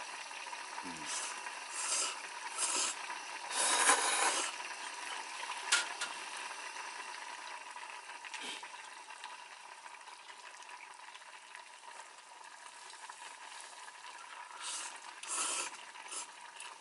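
Pasta and broth in a motsunabe hotpot being stirred and served, with utensils scraping and clinking against the pot several times, the longest stroke about four seconds in. A steady hiss from the simmering pot lies underneath.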